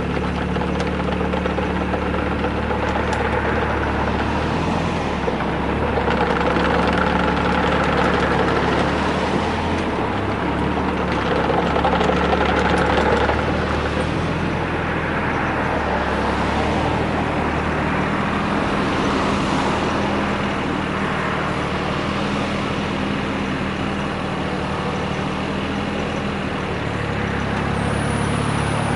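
Yanmar VIO20-1 mini excavator's diesel engine running steadily, its pitch stepping up and down several times as engine speed changes.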